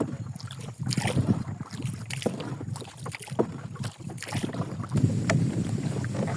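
Wind rumbling on the microphone, with scattered small clicks and knocks.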